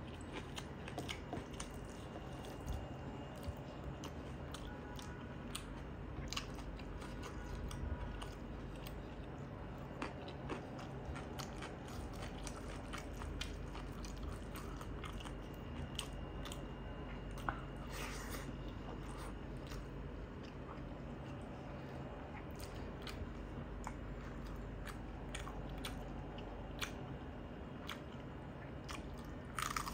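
Close-up chewing and biting of rice and curry eaten by hand, wet mouth sounds with scattered sharp clicks and occasional crunches.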